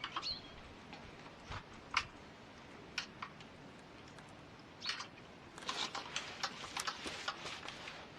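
Scattered light clicks and taps over a faint background hiss, clustering more densely about five seconds in; no engine running.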